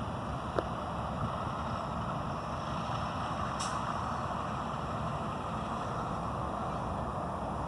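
Steady low rumble of a heavy vehicle, with no horn sounding, and a brief hiss about three and a half seconds in.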